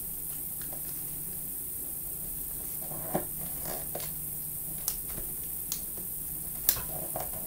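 Origami paper rustling and crinkling under fingers as a flap is folded and pressed flat: a few short, soft crackles from about halfway through, over a steady background hiss and low hum.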